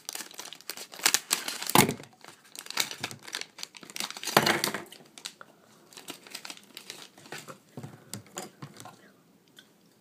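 Plastic LEGO minifigure blind bag crinkling and tearing as it is opened and handled. It is densest in the first half and thins to scattered light clicks and rustles.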